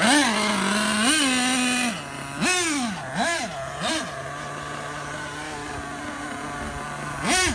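Dynamite .28 nitro engine in a Losi 8IGHT-T RC truggy revving in short bursts, its pitch rising and falling several times in the first four seconds. It then settles to a steady idle before one more quick rev near the end.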